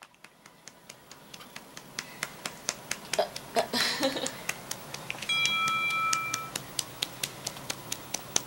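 Hand patting a baby's back in a steady rhythm, about three to four light pats a second, to bring up a burp. A steady high tone sounds for about a second just past the middle.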